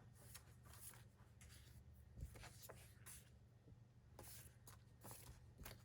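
Faint rustling and light ticks of plastic acetate sticker sheets being handled, over a steady low hum.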